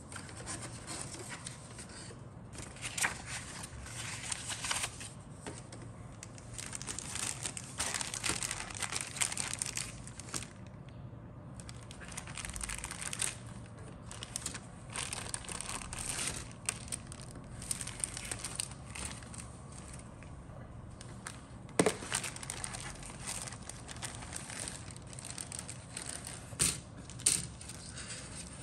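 Clear plastic bag crinkling and rustling in bursts as grey plastic model-kit sprues are handled inside it and pulled out. There is a sharp knock about three quarters of the way through and two quicker clicks near the end.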